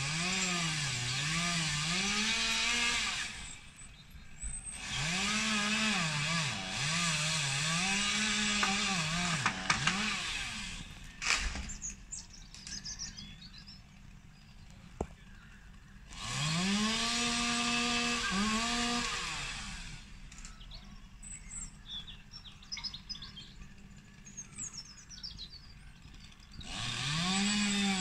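Chainsaw revving in bursts, its engine pitch swinging up and down as the throttle is worked, with pauses of several seconds where it drops away. Partway through there is one held high rev, and it starts up again near the end.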